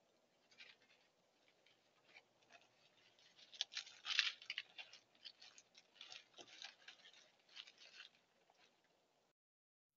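Raccoons pushing through leafy plants, a faint run of irregular rustling and crackling, busiest around the middle and stopping short before the end.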